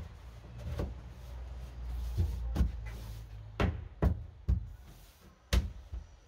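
Plywood top of a wooden bed box knocking and thumping as it is pressed and shifted by hand: about six sharp knocks in the second half, over a low rumble.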